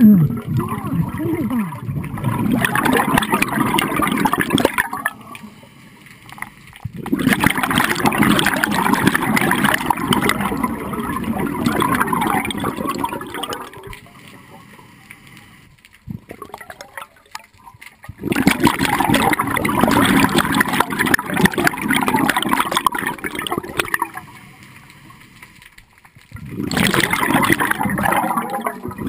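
A scuba diver's exhaled bubbles gurgling out of the regulator in four long bursts, with quieter gaps between them as the diver breathes in.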